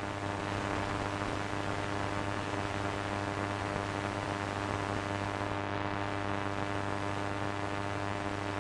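A steady electrical buzz with a low hum and many overtones, over a hiss of static. It is the interruption drone of a broadcast emergency alert.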